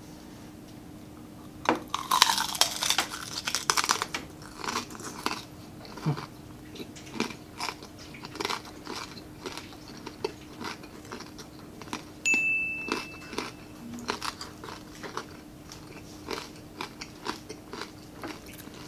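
Biting into a crispy deep-fried pork pinaputok: a loud run of crunches about two seconds in, then repeated crunchy chewing.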